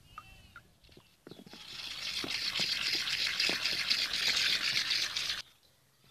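Freshwater mussel shell ground against a stone: a steady, gritty scraping that starts about a second in and stops suddenly near the end, as the rubbing wears a hole through the shell.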